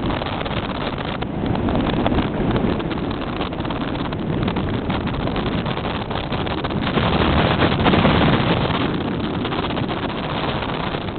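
Gusty wind buffeting the microphone over breaking surf, a steady rushing noise that swells with a stronger gust a little past the middle.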